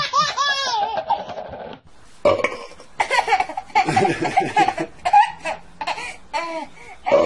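A baby's vocal sounds and laughter: a wavering squeal in the first second, then a run of short laughing bursts.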